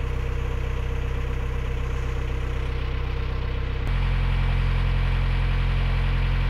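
A narrowboat's diesel engine running steadily at cruising speed. About four seconds in it turns suddenly louder and deeper as the boat goes under a steel footbridge.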